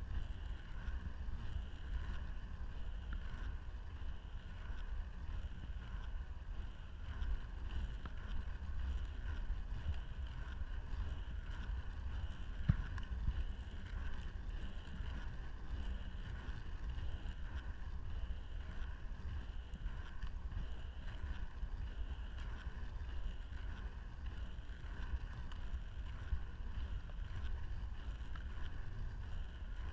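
Inline skate wheels rolling on a rough tarmac path, a steady rumble with gentle rhythmic swells from the skating strides, and wind on the microphone. One sharp tick about halfway through.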